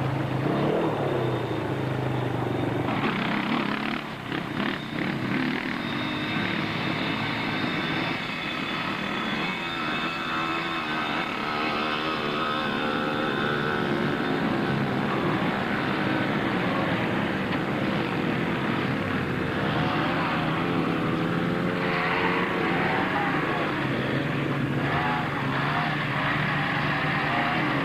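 Quad (ATV) engines running, revving up and down as the machines ride, their pitch rising and falling.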